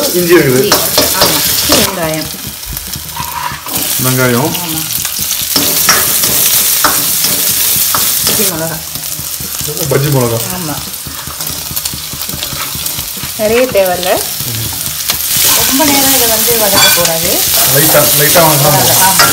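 Onions and green chillies sizzling as they fry in hot oil in a steel wok. A ladle stirs them in repeated strokes that scrape against the pan. The sizzle starts loudly as the first chopped ingredients hit the oil.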